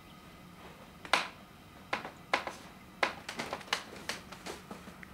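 An irregular run of sharp, short taps and clicks of hard objects: a few spaced ones, then a quicker cluster in the second half.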